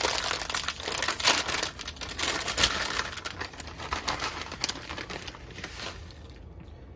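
Crinkling and rustling, like something being crumpled by hand, dense with small crackles for about six seconds before dying down near the end.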